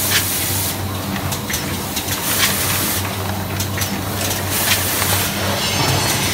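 Doypack liquid filling and capping machine running: a steady hum under a hiss of air that comes and goes about every two seconds, with light mechanical clicks.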